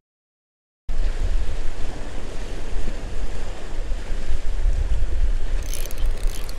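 Wind buffeting the microphone over waves washing against jetty rocks, starting abruptly about a second in after a moment of silence. A few faint ticks near the end.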